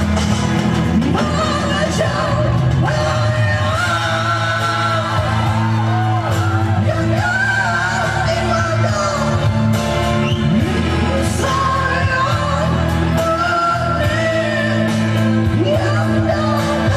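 A man sings into a handheld microphone over backing music, amplified through PA speakers. His voice moves in long wavering held notes.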